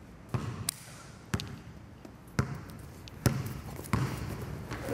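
Basketball dribbled on a wooden gym floor: about six single bounces at an uneven pace, each a sharp knock with a short echo in the hall.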